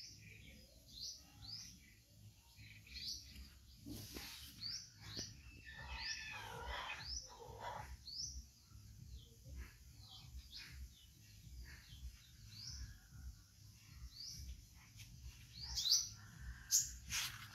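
Small birds chirping: short rising chirps repeated about once a second, with louder calls near the end.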